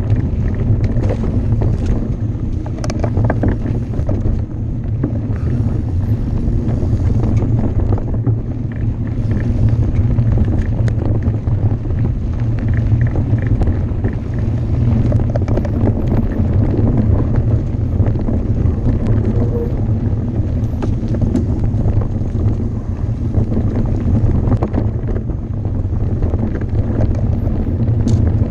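Wind buffeting the microphone as a steady low rumble, with the rattle and clatter of a mountain bike riding fast over rough trail.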